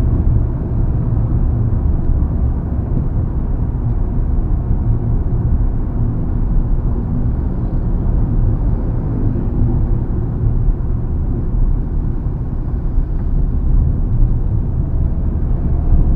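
Steady low road and tyre rumble heard inside the cabin of a moving Mitsubishi Xpander on a concrete road, with little high hiss. Rubber door seals have been fitted to the door gaps, which the owner says has almost removed the wind noise.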